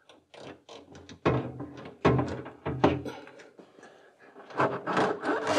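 A Mercedes-Benz 560SL's fuel tank and its rubber boot bumping against the car body as they are fed up through the hole into place: a string of thunks and knocks, several louder ones in the middle, with a rubbing scrape near the end.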